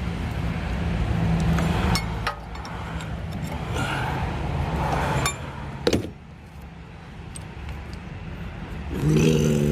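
Metal tractor parts and tools clinking and knocking a few times during axle work, the loudest knock about six seconds in, over a steady low hum.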